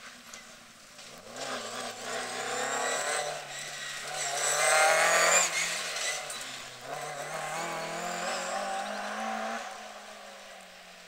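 BMW E30 rally car's engine at full throttle as the car passes, its pitch climbing through the gears with short steps between pulls. It is loudest about five seconds in and fades as the car draws away.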